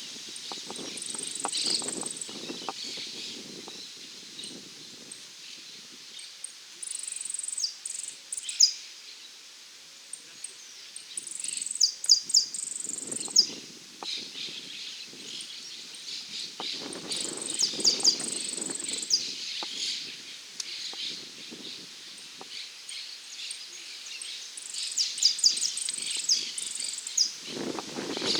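Saffron finch singing: several bursts of quick, high chirping and trilling phrases a few seconds apart, over a low rustling background.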